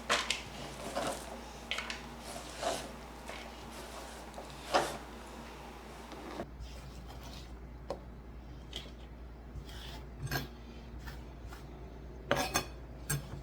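Kitchen prep sounds: scattered, irregular knocks and clinks of a knife, utensils and dishes on the counter, with a cluster of louder knocks near the end. A faint background hiss stops about halfway through.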